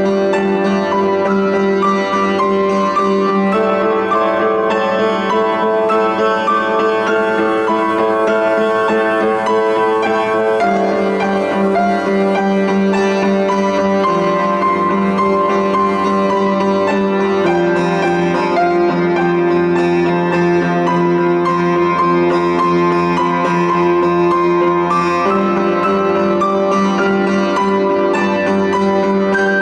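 Solo piano music played over the footage: sustained chords that change every few seconds.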